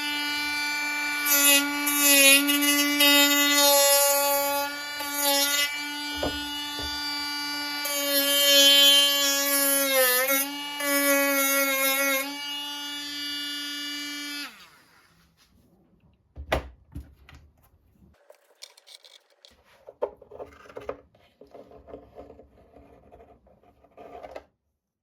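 A small handheld electric sanding tool running with a steady high whine as it sands the wooden transom of a model boat hull, its pitch sagging briefly when pressed harder into the wood; it shuts off about fourteen seconds in. A single knock and light handling sounds follow.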